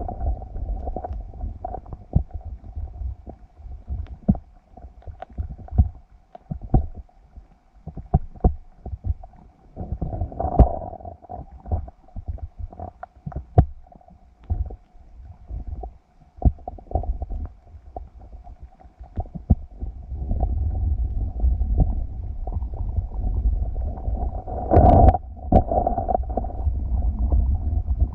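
Muffled water noise heard through an underwater microphone: a low rumbling with many irregular knocks and clicks, and a faint steady hum. The rumbling grows louder for the last several seconds, with a sharper burst about three seconds before the end.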